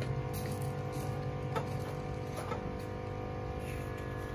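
A steady machine hum with several even tones, and two faint taps about one and a half and two and a half seconds in.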